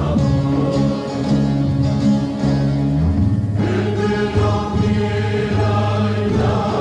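Music with singing heard as a long-distance FM radio broadcast from a Turkish station on 91.8 MHz. The sustained voices and notes change about halfway through.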